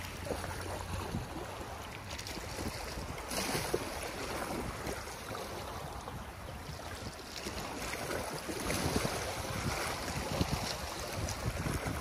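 Sea swell washing and sloshing against the concrete blocks of a breakwater, surging louder about three seconds in and again near the end, with wind rumbling on the microphone.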